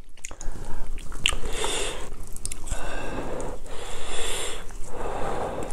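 A man breathing hard through nose and mouth, about one breath a second, with sniffs, from the heat of very spicy kimchi. A few small clicks come between the breaths.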